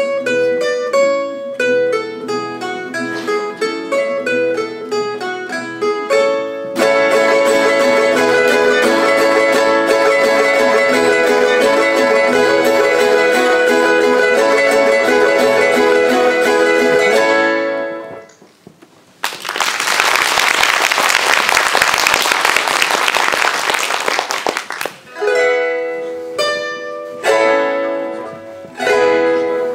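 Gusli and acoustic guitar playing a plucked folk tune, which swells into fuller, louder playing about seven seconds in and stops around eighteen seconds in. About six seconds of applause follow, then the two instruments begin plucking a new tune.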